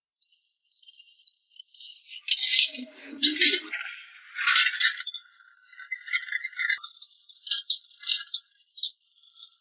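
A cooking pot being scrubbed clean: irregular scratchy scrubbing strokes, faint at first and loudest from about two seconds in, then coming in short scattered scrapes.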